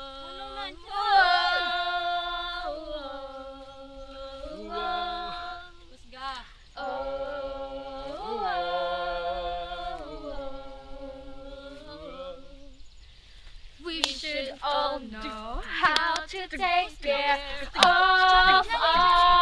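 A group of students singing a song together without accompaniment, holding long notes of about two seconds each. Near the end the singing grows louder and more ragged, with a few sharp hits.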